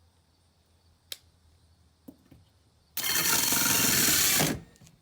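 Power drill running in one short run of about a second and a half, cutting through the camper's fiberglass side wall to finish the dryer-vent hole, then stopping. A light click and a couple of small knocks come before it.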